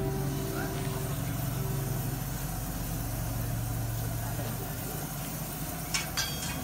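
Steady low engine hum, like a motor idling. A held tone fades out about two seconds in, and a few sharp clicks come near the end.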